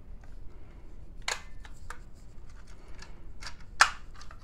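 Handling of a plastic fire alarm pull station: a handful of short, sharp clicks and snaps at irregular intervals, the loudest about four seconds in.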